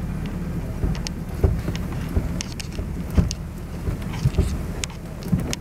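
Car's engine and tyres rumbling steadily at a slow crawl, heard from inside the cabin, with scattered sharp clicks and pops over it.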